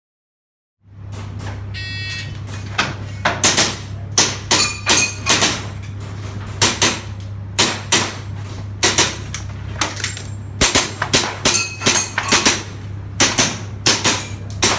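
Airsoft guns firing: sharp cracks at irregular intervals, about one or two a second, over a steady low hum, starting about a second in after silence.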